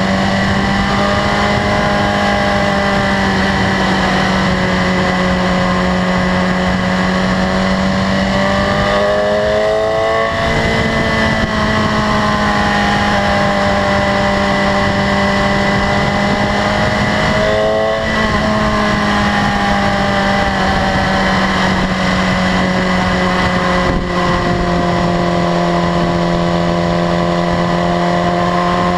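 2015 BMW S1000RR's inline-four engine running at steady cruising revs. Its pitch shifts briefly twice, about a third of the way in and again a little past halfway.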